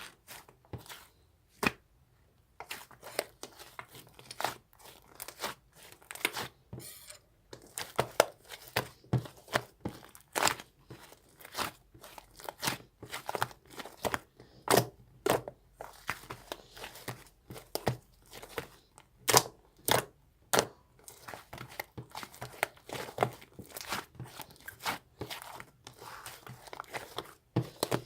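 Irregular sharp clicks, taps and crinkling, like something being handled close to the microphone, several a second with short gaps.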